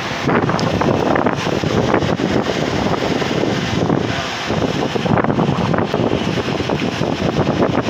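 A Claas combine harvester and a tractor running alongside it, buried under heavy wind buffeting on the microphone that rises and falls in gusts.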